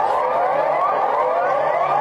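Siren sounding as a string of quick rising whoops, repeating about twice a second and overlapping one another, at a steady loudness.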